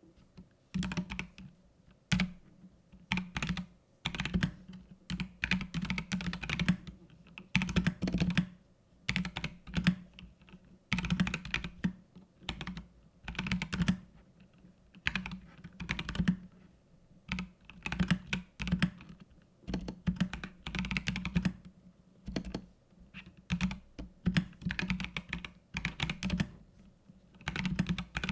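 Typing on a mechanical keyboard fitted with Gazzew Boba U4T tactile switches, in runs of rapid keystrokes broken by short pauses.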